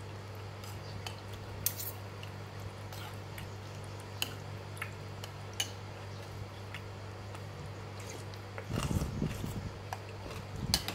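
Metal spoon and fork clinking against a ceramic soup bowl while noodle soup is scooped and stirred: scattered sharp clicks over a steady low hum. A brief louder low rumbling burst comes about nine seconds in.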